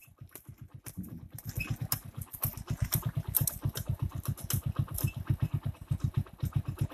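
Engine of a small motorised cart running with an even low thudding, about nine beats a second, growing louder from about a second in as the cart comes up alongside and draws ahead.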